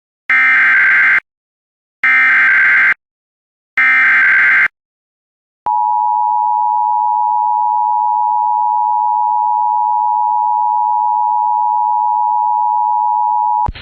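Emergency Alert System tones: three short buzzy bursts of SAME header data, each about a second long with short gaps between them, then the steady two-tone EAS attention signal held for about eight seconds. The attention signal marks that an emergency warning message follows.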